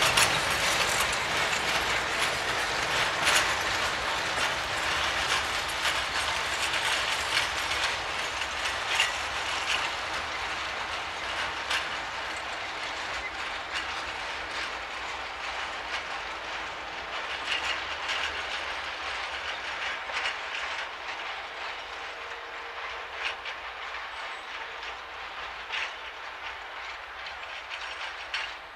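Train of cement hopper wagons rolling away on the rails, its wheels clicking and clattering irregularly, the sound fading steadily as the train recedes.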